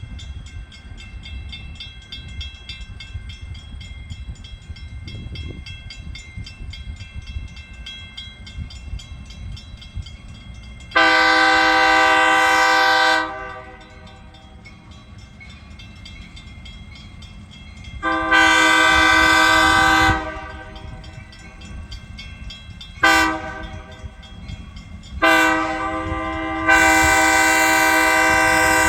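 Diesel locomotive air horn sounding the grade-crossing signal: two long blasts, one short, then a long one held to the end, over a steady low engine rumble. Before the horn, a fine rapid ringing sits under the rumble.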